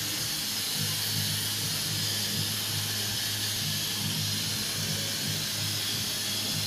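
Spray polyurethane foam gun hissing steadily as it sprays insulation foam, with a low steady hum underneath.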